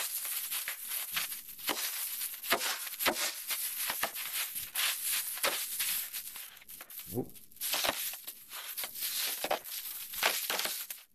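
Foil insulation liner and plastic ingredient bags crinkling and rustling as a hand rummages through them in a cardboard box, in quick irregular crackles.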